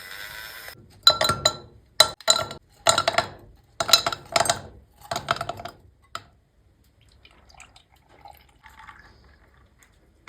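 Ice cubes dropped one at a time into a drinking glass: about seven sharp, ringing clinks over some five seconds, then faint small handling sounds.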